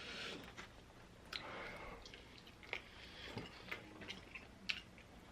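A person chewing food, with faint wet mouth sounds and a handful of scattered sharp clicks.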